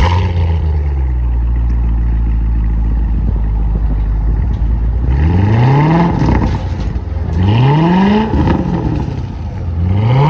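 2015 Chevrolet Corvette's 6.2-litre V8 through an exhaust with a newly fitted Borla X-pipe: it fires up at the start and settles to a steady idle. From about halfway through it is revved three times, each a quick rise and fall in pitch, the last near the end.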